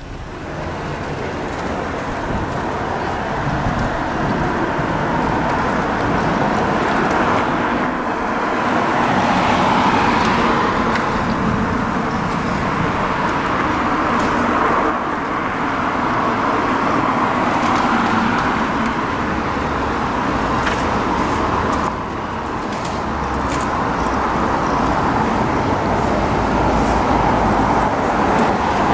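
Road traffic on a city street: cars passing, their noise swelling and fading every few seconds.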